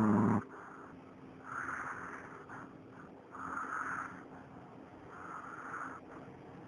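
Snoring: a loud, pitched snore ends about half a second in, followed by three softer, breathy snores spaced roughly two seconds apart.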